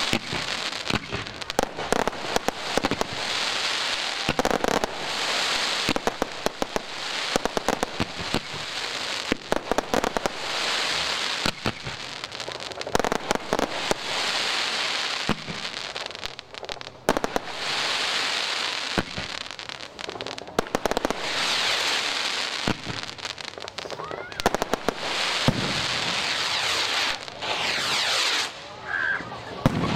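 Fireworks display: multi-shot cakes firing in quick succession, rapid sharp bangs of launches and bursts mixed with repeated patches of crackle and hiss from gold crackling stars.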